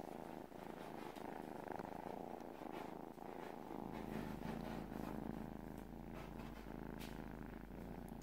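Tabby kitten purring steadily while held and stroked.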